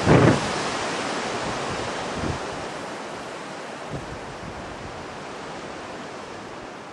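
Wind buffeting the camera microphone: a steady rushing hiss that slowly eases off, with a short, louder thump of wind or handling right at the start and a couple of faint knocks later.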